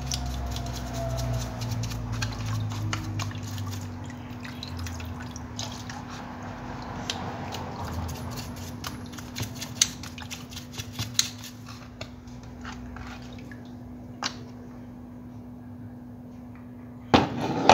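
Paintbrush scrubbing an Escualo fishing reel's body in a tray of diesel: liquid splashing and dripping, with many small irregular clicks of the bristles and metal parts, busier in the first half. A steady low hum underneath.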